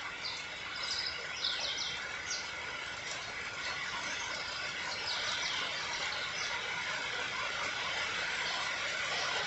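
Steady rain falling, with a bird giving clusters of short, high chirps about a second in and again a little past the middle.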